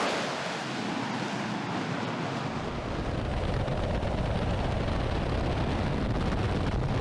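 F-35B fighter's jet engine noise as it leaves a carrier's ski-jump ramp: a steady noise without any clear tone. About two and a half seconds in, a deep low rumble joins it.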